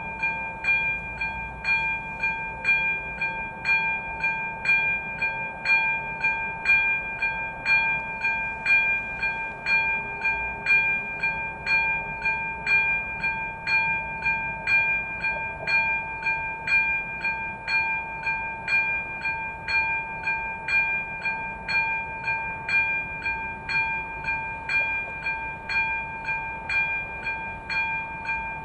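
AŽD ZV-02 electronic level-crossing bell ringing over a steady tone, with about two strikes a second. It starts at the beginning, which means the crossing's warning has been set off for an approaching train.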